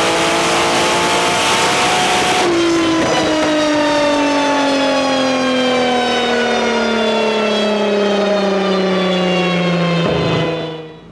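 Kia Stinger 3.3-litre twin-turbo V6 on a chassis dyno at the top of a wide-open-throttle power pull, its pitch still rising. About two and a half seconds in the throttle closes and the engine's pitch falls steadily as it coasts down, dropping to idle near the end.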